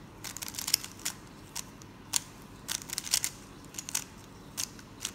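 Plastic clicks and clacks of a stickerless 3x3 speed cube as its layers are turned by hand, a quick run of face turns in irregular single clicks and short clusters.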